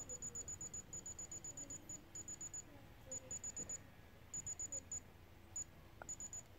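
Non-contact infrared forehead thermometer giving rapid, short, high-pitched beeps in bursts of several at about eight a second, with short gaps between bursts. These quick beeps are the thermometer still scanning without a reading; a long beep means it has taken the temperature.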